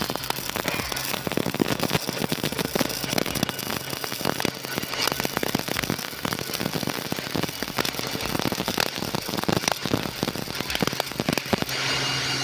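MIG welding arc crackling steadily while a root pass is run. The crackle stops near the end, leaving a steady low hum.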